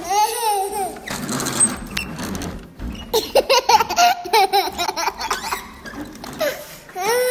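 A little girl laughing in bursts, with a run of quick, rapid giggles about three seconds in.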